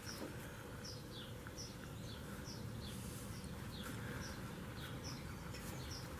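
Faint bird chirping: short, high, slightly falling chirps repeating about every half second to second, over a low steady hum.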